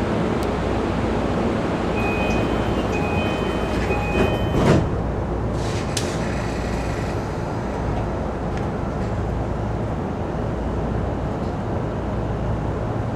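JR Nanbu Line electric train running, a steady rumble of wheels and motors. A run of short high beeping tones starts about two seconds in, and a loud brief clatter comes about halfway through, followed by a few sharp clicks.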